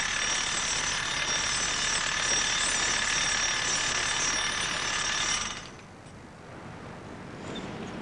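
Power hammer drill boring a self-drilling concrete anchor into a concrete ceiling, the anchor serving as its own drill bit. A steady loud drilling noise with high whining tones, which stops suddenly about five and a half seconds in.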